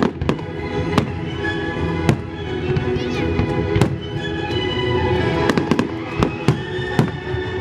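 Fireworks shells bursting in a rapid, irregular series of sharp bangs, about two a second, over orchestral music with sustained notes.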